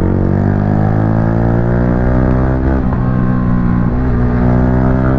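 Yamaha R15 V3's 155 cc single-cylinder engine running through an aftermarket exhaust under way, its pitch rising steadily over the first two or three seconds as it accelerates, then holding.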